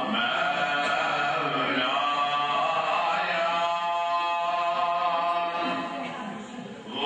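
A man chanting a long, melodic Islamic recitation in a mosque, holding drawn-out notes that bend slowly in pitch. The voice fades near the end as he pauses for breath.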